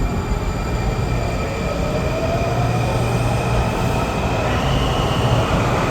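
WMATA Metrorail 7000-series subway train arriving at an underground station: steady rumble of the cars on the rails with the whine of its electric propulsion, growing slowly louder as it comes in, a tone rising a little in pitch midway and a higher whine joining near the end.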